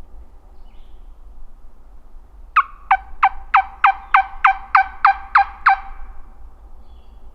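A turkey yelping: a loud, close series of about ten sharp yelps, roughly three a second, each note falling steeply in pitch. The yelps start a little over two seconds in and stop near the six-second mark.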